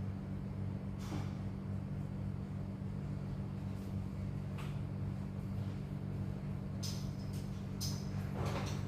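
Steady low machine hum, with a few faint clicks and rustles now and then.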